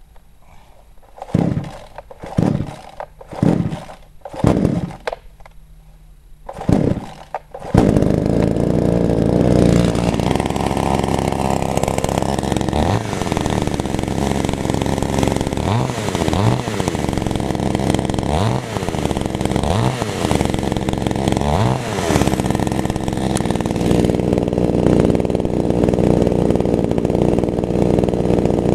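Chainsaw being pull-started: about five short bursts, then it catches about eight seconds in and runs steadily, its pitch swinging briefly several times in the middle.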